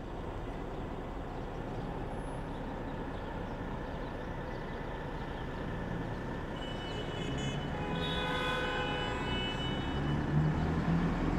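Street traffic: a steady rush of passing vehicles. About seven seconds in, a vehicle's steady pitched note joins it for a few seconds, like a horn or engine whine.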